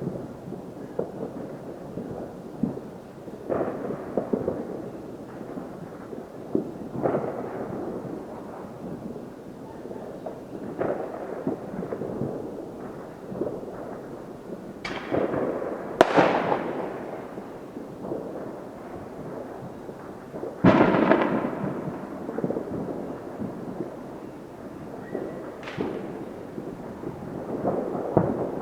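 New Year's Eve fireworks going off all around: a steady run of distant booms and pops, with several louder, sharp bangs, the loudest about 16 and 21 seconds in, each followed by an echoing tail.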